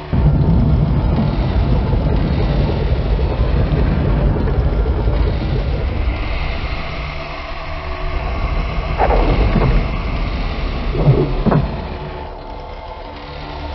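Industrial electronic sound sample: a loud, low rumbling noise texture that starts abruptly, with a hiss swelling in the middle and two brief falling sweeps about nine and eleven seconds in, then drops back near the end.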